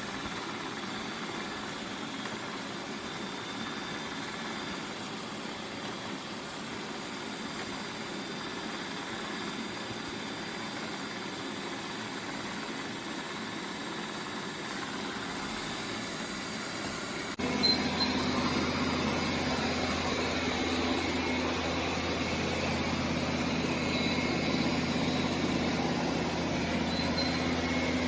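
Roborock Q8 Max robot vacuum running with a steady whir. A little over halfway through it suddenly gets louder, with a steady low hum coming in.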